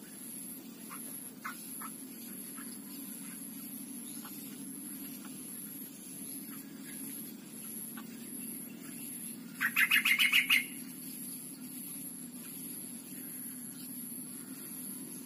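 Streak-eared bulbul giving a quick chattering run of about eight sharp notes, lasting about a second, past the middle, with a few faint chirps before it. A steady low hum and a thin, high, on-and-off whine run underneath.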